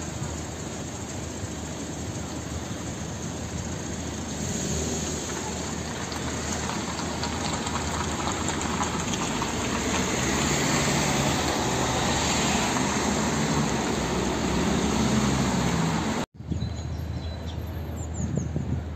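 City street traffic: a steady wash of cars running past on a paved street. About three seconds before the end it cuts abruptly to a quieter outdoor ambience.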